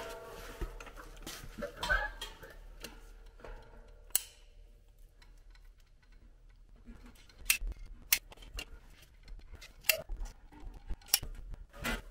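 Caulking gun clicking as its trigger is squeezed to push out a bead of gasket maker: a series of sharp, irregular clicks, most of them in the second half.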